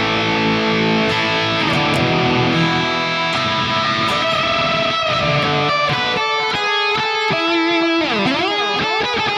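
Electric guitar playing: held chords for the first few seconds, then a fast lead run with quick pitch bends and slides near the end.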